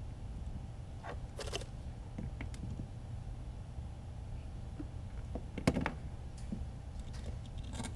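A few light clicks and knocks as a drone frame and small tools are handled on a work mat, the loudest about three-quarters of the way through, over a steady low hum.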